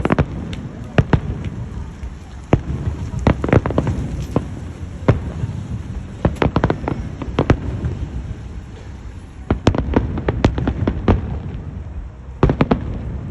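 Fireworks going off: irregular loud bangs, some alone and some in rapid crackling clusters, over a continuous low rumble of booms.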